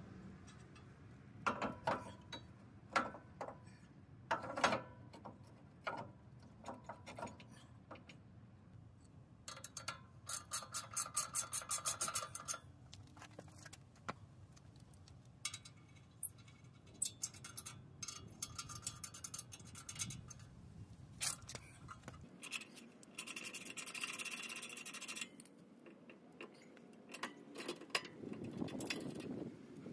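A hand ratchet clicking in quick, even runs, with scattered sharp metal clinks of tools between, as the upper ball joint nut on a Toyota Tacoma's front suspension is backed off.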